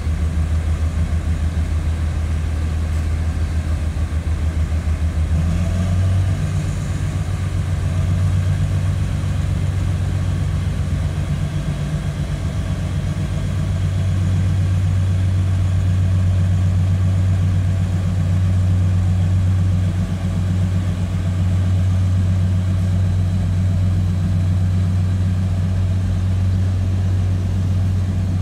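Diesel multiple-unit train's engines running with a steady low hum as the train moves slowly along the platform. The engine note steps up about six seconds in.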